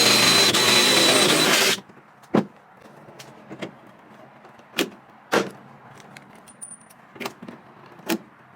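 Power drill running steadily with a whine for a little under two seconds, boring a rivet hole in an aluminum truck bed panel, then stopping abruptly. Several sharp, irregular clicks follow.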